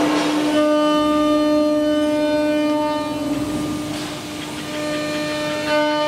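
Steady high whine of a 4.5 kW HSD router spindle on a CNC door-hinge routing machine, with a short burst of cutting noise right at the start. About halfway through the whine wavers and weakens, then comes back at full strength near the end.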